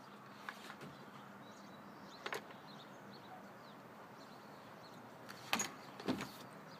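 An Echo CS-330T top-handle chainsaw with its engine off, handled on a bench, with a few light knocks and clicks as it is tipped onto its side and set back down. The knocks come about half a second in, near the middle, and twice close together near the end.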